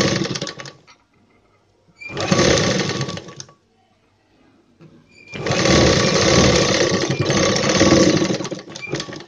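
Sewing machine running as it stitches a seam. It goes in three runs: one that stops within the first second, a short run around two to three and a half seconds in, and a longer run from about five and a half seconds until just before the end, with quiet pauses between them.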